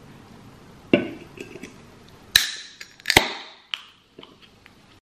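Ring pull of an aluminium can of Pepsi Max being opened: two sharp cracks a little under a second apart, each followed by a short fizzing hiss of gas escaping from the carbonated drink. A knock comes about a second in, and a few light clicks follow the cracks.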